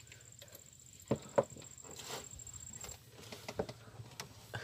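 Quiet small knocks and clicks of handling, with two sharper knocks just over a second in, over a faint steady high whine.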